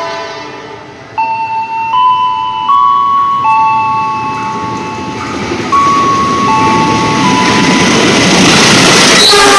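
An electronic station chime plays a simple tune of clear tones, a new note about every 0.7 s. Under it the rumble of an approaching train grows steadily louder and is loudest near the end.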